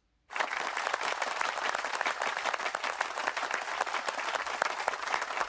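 Applause: many hands clapping, starting abruptly about a third of a second in and continuing steadily.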